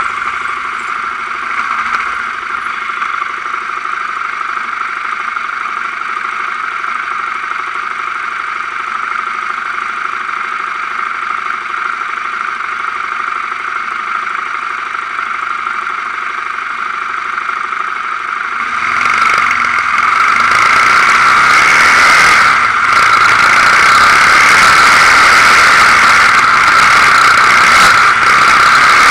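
Quad bike (ATV) engine idling steadily while stopped, then about two-thirds of the way through it is revved and the quad drives off, the engine noise jumping up louder and rougher as it runs along the dirt track.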